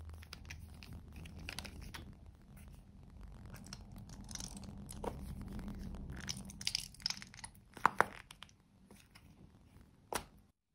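Plastic tube of clear lip gloss gel being handled and squeezed out onto slime, with wet crackling and squelching as the gel comes out. A few sharp clicks and pops stand out, the loudest about eight seconds in and another just after ten seconds.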